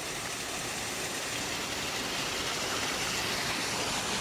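Steady rush of running water, growing slightly louder.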